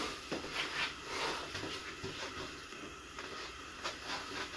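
Faint rustling with a few soft knocks and clicks as a person handles and lifts a cat.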